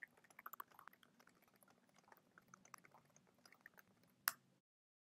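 Near silence: faint room hum with soft, scattered computer keyboard key clicks as a command is typed, and one sharper key click about four seconds in. Then the background cuts out to total silence.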